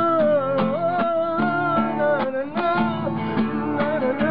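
A voice singing long held notes over strummed acoustic guitar.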